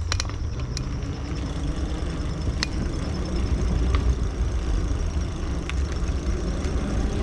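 Riding noise from a mountain eBike moving along a trail: a steady low rumble, with a few sharp clicks and rattles scattered through it. Insects trill faintly and steadily in the background.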